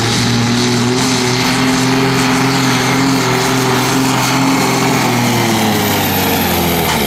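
A John Deere tractor's diesel engine runs flat out under heavy load as it pulls the sled, holding a mostly steady pitch and pouring black smoke.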